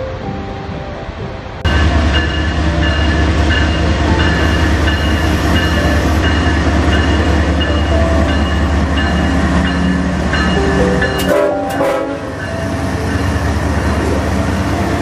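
Music, cut off about a second and a half in by a Canadian Pacific diesel freight locomotive passing close: a loud, deep engine rumble with steady higher tones over it, then the train's cars rolling by.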